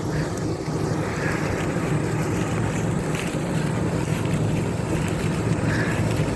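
Combine harvester cutting wheat, its engine and machinery giving a steady low drone, with wind buffeting the phone's microphone.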